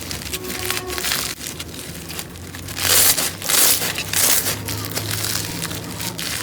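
Crunchy slime being squeezed and pressed, a dense crackling with a few louder crunches about halfway through.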